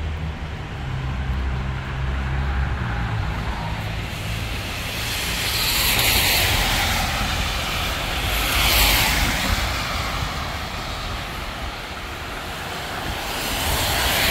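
Cars passing on a wet road: the hiss of tyres on rain-soaked pavement swells and fades three times, with a low engine hum in the first few seconds.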